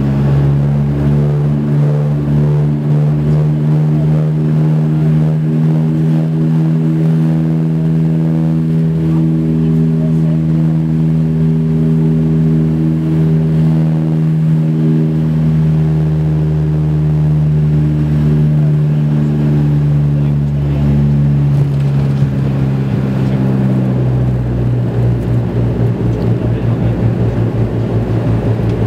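Cabin sound of a Dash 8-Q100 heard right beside its turboprop engine and propeller on the landing: a loud, steady propeller drone with a strong low hum. In the last few seconds the hum drops in pitch and a rougher rumble takes over as the aircraft rolls out on the runway.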